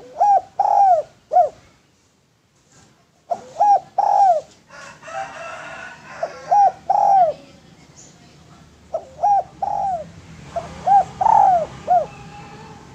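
Spotted dove cooing: several short phrases of two to four arched coos, with pauses of a second or more between the phrases.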